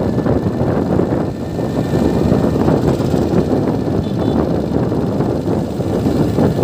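Motorbike being ridden along a street, its engine running steadily under road and wind noise: a continuous low rumble.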